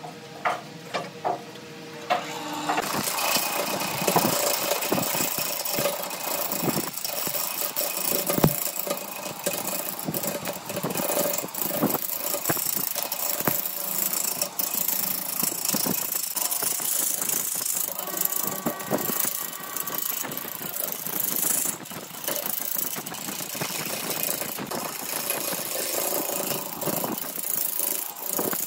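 Out-of-round grapefruit-wood log spinning on a wood lathe while a gouge roughs it down. It starts as a steady lathe motor hum with a few knocks, then from about three seconds in turns to a continuous loud rattling scrape of the gouge biting the uneven wood, full of sharp knocks.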